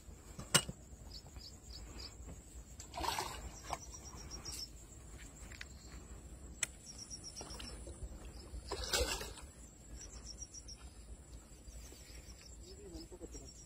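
Faint outdoor ambience by the water with short high chirps from insects, a sharp click about half a second in, and two brief noisy rushes about three and nine seconds in while a hooked fish is played from the bank.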